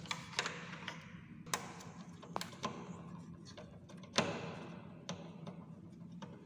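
Irregular light clicks and taps of hard parts being handled, with a louder knock about four seconds in, over a low steady hum.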